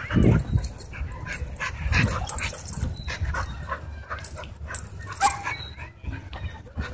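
Several dogs in rough play at close range: short yips and whines among scuffling and heavy bumps, with a brief high whine about five seconds in.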